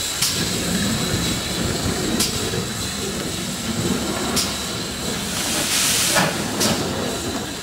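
GWR 57xx pannier tank steam locomotive 3650 moving slowly under steam, with a steady low rumble and sharp beats about every two seconds. A loud burst of steam hiss comes about six seconds in.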